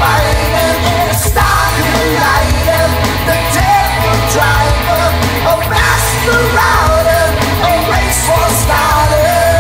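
Rock song playing: a full band mix with a lead vocal singing over it.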